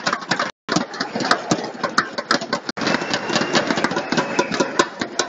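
Indoor arena crowd din: many voices with frequent sharp claps and knocks. The sound cuts out completely twice for a moment.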